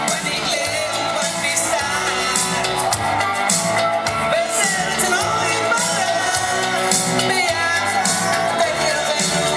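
Music with a steady beat and singing, played loud through loudspeakers mounted on a van's roof.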